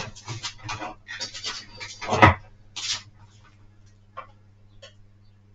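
Irregular knocks, scrapes and rattles of tools and a small workpiece being handled on a workbench, dying away after about three seconds into a few single clicks, over a low steady hum.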